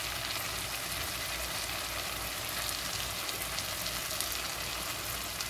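Chicken pieces and spice masala frying in oil in a pan: a steady sizzle with faint scattered crackles.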